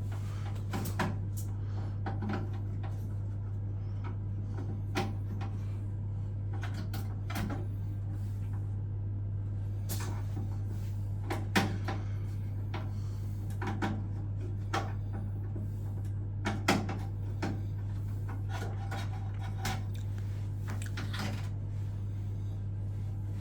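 A steady low hum with scattered sharp clicks and knocks of things being handled, about a dozen in all. The loudest knock comes about halfway through.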